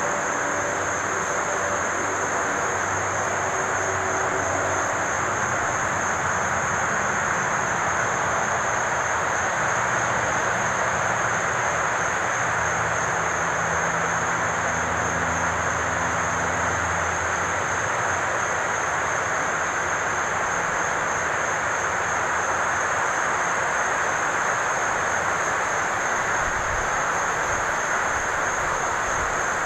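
Steady outdoor ambience of an insect chorus, an unbroken high shrill buzz over an even hiss, with a low engine-like drone under it that fades out about two-thirds of the way through.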